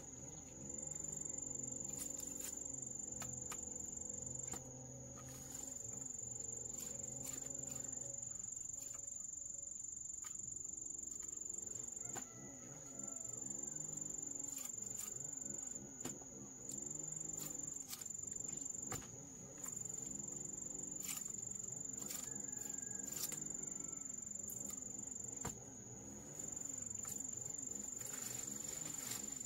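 Insects trilling in one steady high-pitched note that drops out briefly a few times, with scattered light clicks and knocks over it.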